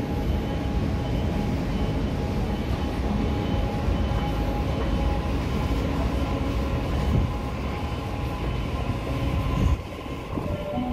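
Escalator machinery running: a steady rumble with a constant whine of several tones, fading down about ten seconds in as the escalator is left behind.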